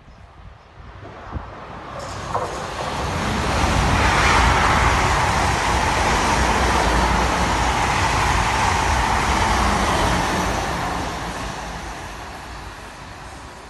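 Two coupled Class 444 electric multiple units running through non-stop. A rushing rumble of wheels on rail builds over a few seconds, stays loud for about six seconds as the train passes close by, then fades as it draws away.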